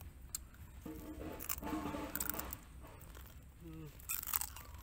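Cooked crab shell crunching between the teeth as crab is bitten and chewed, with a cluster of sharp crunches near the end. A steady pitched humming-like tone sounds for about a second and a half in the first half.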